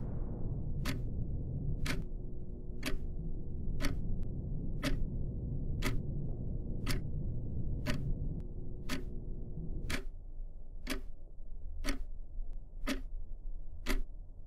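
Wall clock ticking steadily, about one tick a second, over a low hum that drops away about ten seconds in.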